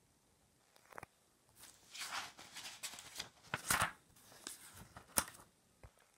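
Paper rustling as the pages of a spiral-bound sketchbook are turned and smoothed by hand: a series of short brushing and crinkling sounds that start about a second in.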